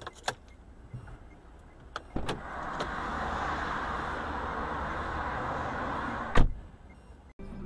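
A car on the road with a few light knocks, then a steady rushing noise for about four seconds, ending in a single loud crash impact.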